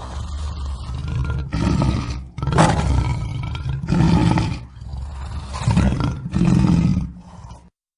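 Lion roaring in a series of deep roars, one every second or so, cut off abruptly near the end.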